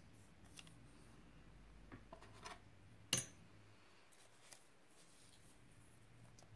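Faint rustling of a sheet of paper being handled and smoothed on a table, with a single sharp click about three seconds in.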